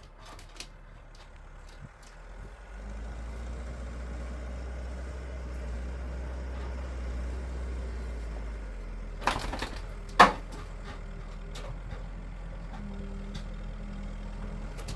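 Backhoe's diesel engine running steadily, working louder about three seconds in and easing off near the nine-second mark, with scattered clicks and two short, loud sounds around ten seconds in.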